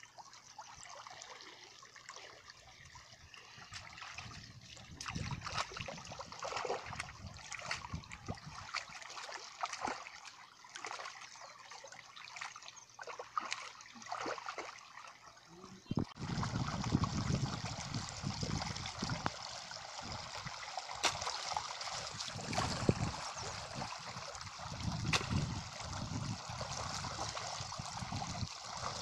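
Shallow water splashing and trickling as hands scoop mud and bail water out of a muddy, mud-banked ditch to get at the fish. The sound grows louder and fuller about halfway through.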